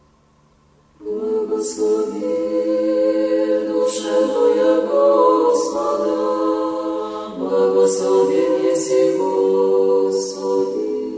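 An a cappella choir sings Orthodox liturgical chant in several-part harmony. It comes in about a second in, after near quiet, with held notes and clear sibilant consonants.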